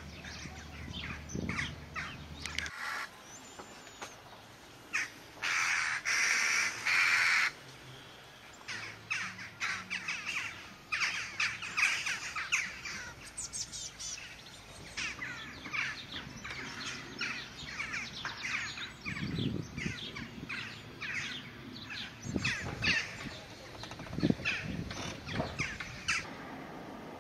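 Many birds calling and singing, with a louder, harsher run of calls about five to seven seconds in.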